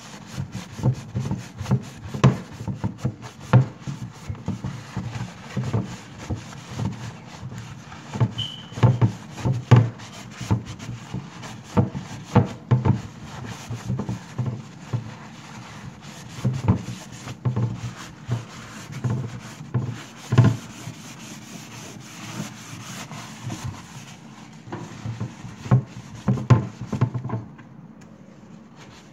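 A solvent-dampened paper towel rubbed hard against a wooden cabinet door in quick, uneven strokes, scrubbing off paint overspray. The rubbing stops shortly before the end.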